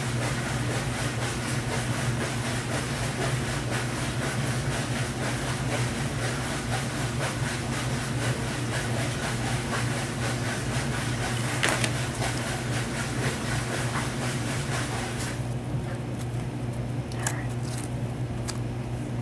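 Steady low hum with a broad hiss over it. The hiss drops away about three-quarters of the way through, leaving the hum and a few light clicks.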